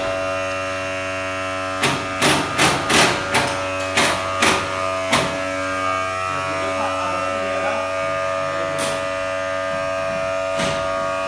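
Construction work: a steady electric buzzing hum from running equipment, with a quick run of about nine sharp knocks around two to five seconds in, then two more single knocks later.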